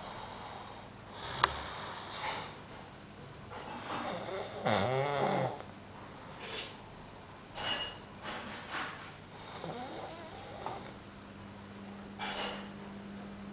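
Snoring from a sleeper on a sofa: a series of uneven breaths, with one long, wavering snore about four to five seconds in.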